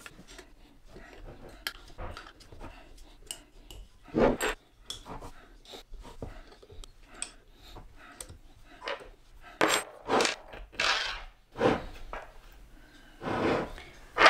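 Hex key and steel bolts on the metal mounting plate of a CNC router spindle: irregular metallic clicks, clinks and scrapes as the bolts are fitted and turned and the parts are handled. There are a few louder knocks about 4 seconds in and again around 10 to 11 seconds.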